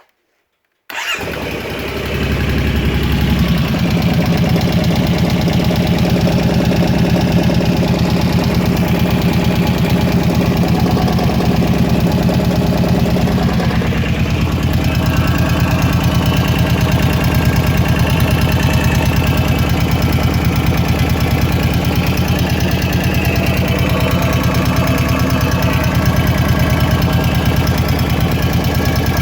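Kawasaki KVF 750 Brute Force ATV engine starting about a second in and then idling steadily, with the rattle from the top end of the engine that the owner is trying to trace.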